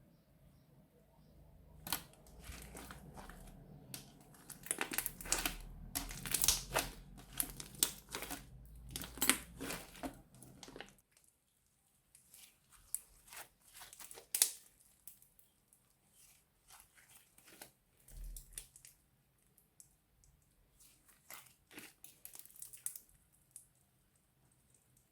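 Plastic bag crinkling and crackling as it is handled, in quick irregular rustles that are dense for about the first ten seconds and then come more sparsely and softly.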